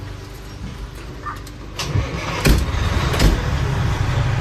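The truck's Detroit Diesel Series 60 inline-six diesel running, heard from inside the fire apparatus cab: a steady low drone that grows louder about two seconds in. Two sharp, loud clunks come shortly after.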